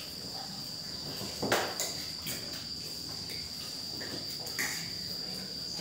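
Steady high-pitched cricket trill, with a few clinks of spoons and forks on plates; the loudest clink comes about one and a half seconds in.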